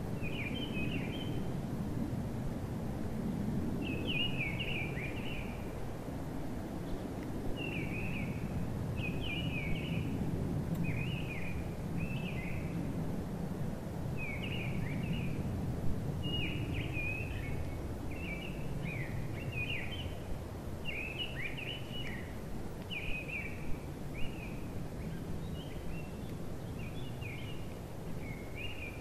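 A small bird singing short, chirpy phrases, one every second or two, over a steady low outdoor rumble.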